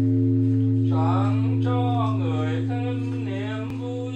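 Great Vietnamese temple bell (đại hồng chung) ringing on with a deep hum and several overtones, slowly fading. About a second in, a voice begins a slow Buddhist chant over it.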